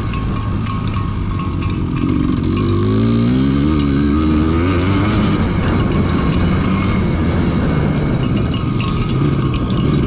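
Dirt bike engine under way off-road, its pitch rising and falling in quick waves as the throttle is worked in the middle, over a steady rushing noise.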